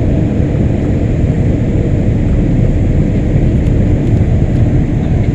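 Boeing 787 engine and airflow noise heard inside the passenger cabin: a steady, loud low rumble with no change in pitch.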